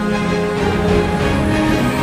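Background music with held, steady notes.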